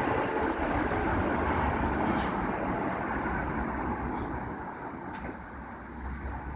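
Road traffic noise: a steady rumble and hiss of passing vehicles that slowly dies away.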